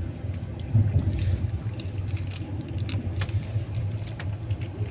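Passenger train running, heard from on board: a steady low rumble with scattered sharp clicks and rattles.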